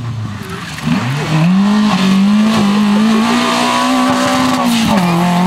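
Citroën Saxo rally car at full throttle: its engine note climbs sharply about a second in and holds high, rising slowly, then drops in pitch near the end.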